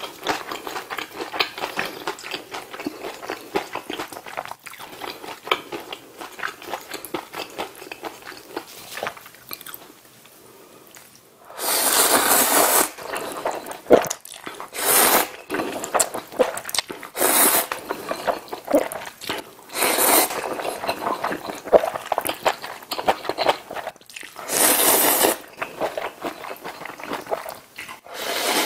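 Close-miked wet chewing, then several loud slurps of ramen noodles from pork kimchi stew, each about a second long, in the second half.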